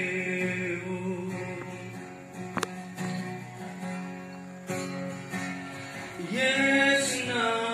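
A woman singing a devotional song to acoustic guitar accompaniment, amplified through a loudspeaker. A held note ends right at the start and the guitar carries on quietly. About six seconds in, the voice comes back strongly on a long held note.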